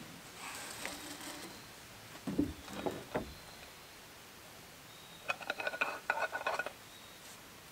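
A person shifting about on a plywood shed deck: two dull knocks on the wood two to three seconds in, then a quick run of light clicks a little after five seconds in.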